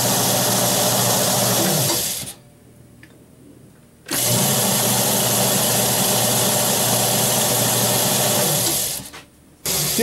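Atlas lathe's 1.5 HP electric motor running with a steady hum, switched through a newly installed forward/reverse drum switch. It cuts out about two seconds in, starts again abruptly about two seconds later, runs steadily, and winds down near the end.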